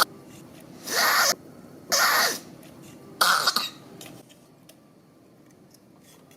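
A mother monkey coughing repeatedly: three harsh coughs about a second apart, the third after a slightly longer gap.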